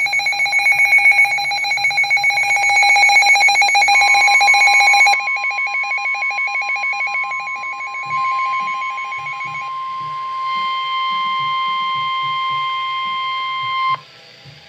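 Emergency Alert System warning tones: rapidly pulsing electronic alarm tones, joined about four seconds in by a steady high tone. The tone carries on alone after the pulsing fades near ten seconds and cuts off suddenly near fourteen seconds.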